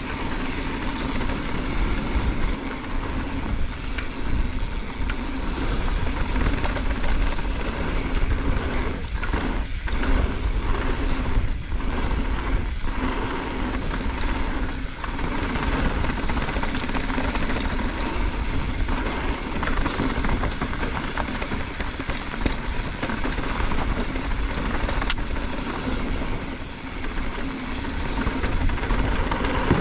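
Mountain bike riding fast down a dirt trail: steady wind rush on the microphone over the rumble of tyres on dirt and the rattle of the bike.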